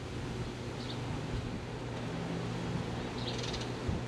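A few short, high bird chirps over a steady low hum.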